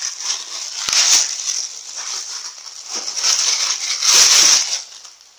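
Clear plastic bag crinkling and rustling as hands tear it open and unwrap a gooseneck pop filter. It is loudest about a second in and again from about three to nearly five seconds, then dies away near the end.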